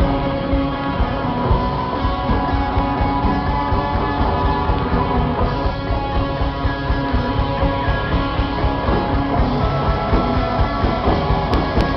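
Rock band playing live: electric guitars and a drum kit playing a steady, loud rock passage.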